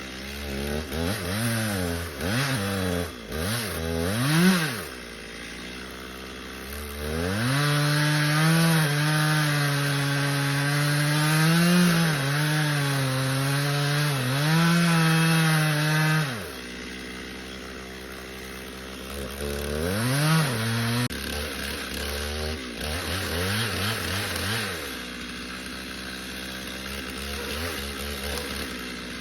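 Stihl chainsaw revved in a few quick blips, then held at full throttle for about nine seconds while cutting into the tree, the pitch wavering under the load of the cut. It drops back to idle, revs twice more about twenty seconds in, and settles to idling.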